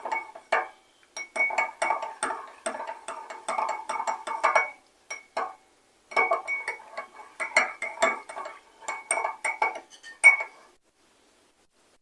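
A spoon stirring a mixture, clinking rapidly and unevenly against the sides of a container that rings with each strike. It pauses briefly about five seconds in and stops about eleven seconds in.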